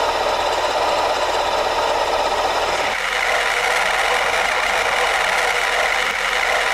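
Honda CR-V engine running with a steady grinding rattle from the failed A/C compressor clutch bearing: the tweaked pulley sits crooked and rubs on the compressor clutch face. About three seconds in the noise turns higher and hissier.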